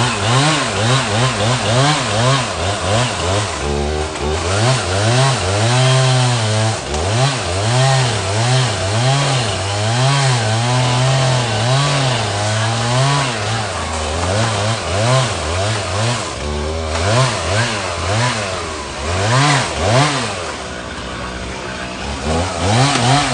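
Chainsaw engine revving up and down again and again, held at high revs for a second or more at a time, as a fallen tree is cut up. It drops back to a lower, steadier run about three seconds before the end, then revs up again.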